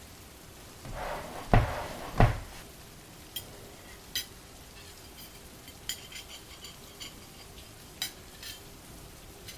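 Dishes and cutlery handled: two heavier knocks about a second and a half and two seconds in, then scattered light clinks of metal on crockery.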